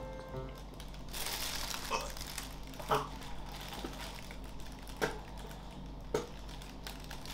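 Four brief, faint vocal sounds from a person over a low background, spaced a second or two apart.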